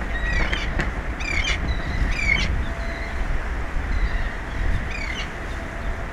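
About four short bird calls over a steady low rumble.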